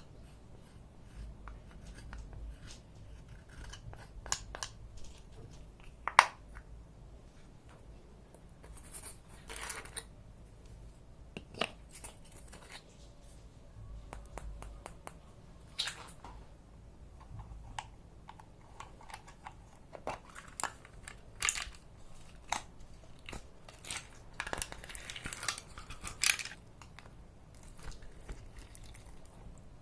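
Hands working with slime-making supplies: irregular small clicks, snips and crinkling rustles of packaging, with a sharp louder click about six seconds in and a denser stretch of crackling near the end.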